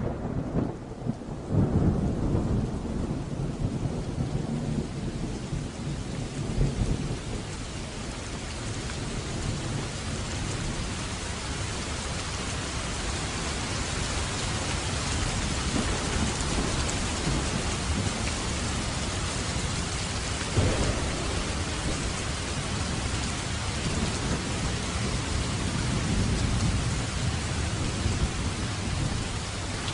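Steady rain falling in an even hiss, with low rolling thunder rumbling under it in the first several seconds.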